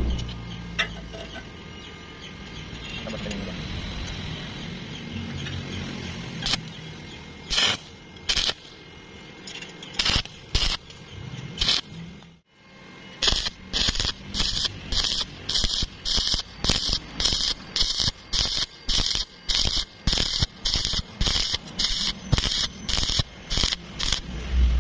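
Stick (SMAW) welding arc on rusty, unprepped steel plate. It gives a steady crackle with a few sharp pops at first. After a break about halfway, the crackle comes in short bursts about twice a second as the rod is tapped along the joint in a whipping motion for the root pass, with the machine believed to be set very hot.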